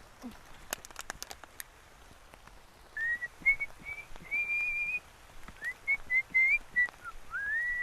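A person whistling a tune: a run of short, clear notes around one pitch, some sliding up, ending on a long held note. A few sharp clicks come before the whistling starts.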